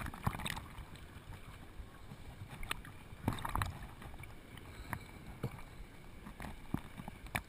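Surf water sloshing and washing, with scattered sharp clicks and knocks.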